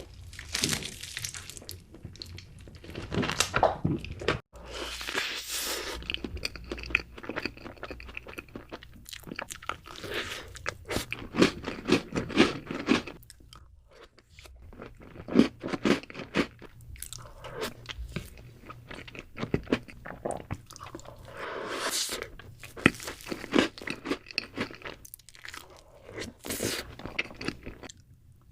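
Close-miked crunchy chewing: a person biting into and chewing crisp food, in runs of dense crackles with brief pauses between bites.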